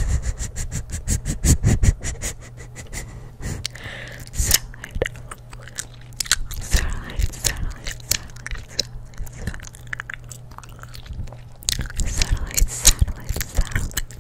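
Chewing gum smacked and clicked close to a microphone: a fast run of wet clicks, about ten a second, in the first two seconds, then slower, irregular smacks.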